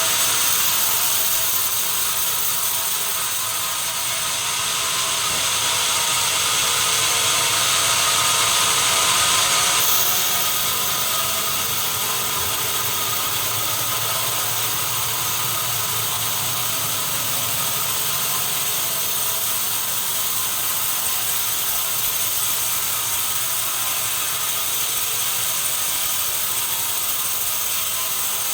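Sawmill machinery running steadily, with a shift in its tone about ten seconds in.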